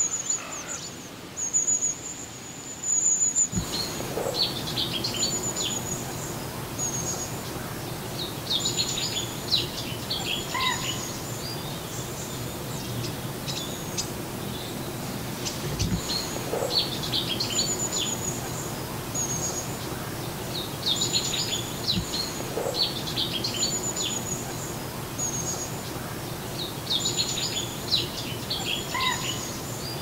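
Long-tailed tits giving short, very high, thin calls for the first few seconds, then bearded tits calling from the reedbed: clusters of sharp ringing call notes every few seconds over a steady background hiss, with a few soft low thumps.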